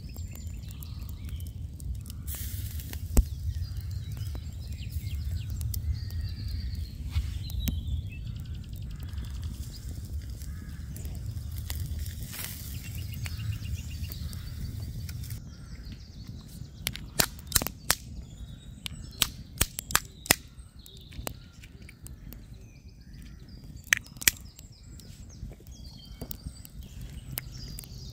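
Wood campfire burning under beef patties on a wire grill: a steady low rumble of fire for about the first half, then a run of sharp crackling pops and clicks. Birds call faintly in the background.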